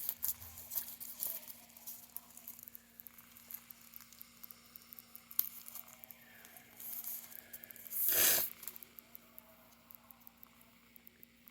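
Light handling noise from a replacement tablet screen being picked up and turned over: scattered small taps and rustles, with one louder brief rustle about eight seconds in, over a faint steady hum.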